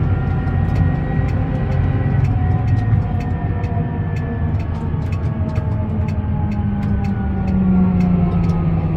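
Fendt 826 Vario tractor's six-cylinder diesel engine and stepless Vario transmission running under way, heard inside the cab: a steady low rumble with several whining tones that slowly shift in pitch, a low engine note swelling slightly about six seconds in, and light scattered clicks.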